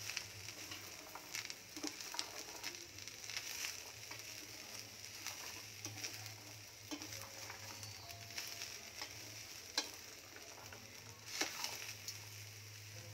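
Diced carrots being stirred and tossed with a spatula in a stainless steel pan, the spatula scraping and clicking irregularly against the pan over a light sizzle of the hot oil tempering. A steady low hum runs underneath.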